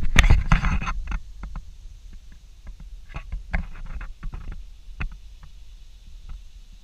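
Handling noise as a handheld camera is swung down and brought close to the deck: a loud, rumbling rush in the first second, then scattered light clicks and knocks.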